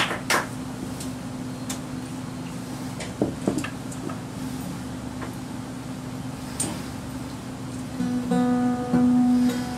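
Acoustic guitar being picked up and handled, with a few scattered knocks and taps against its body. Near the end a string is plucked a couple of times and left ringing, as in checking the tuning between songs.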